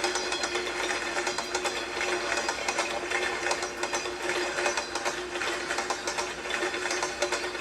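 Train clickety-clack sound: rapid, continuous mechanical clicking and clattering over a steady hum.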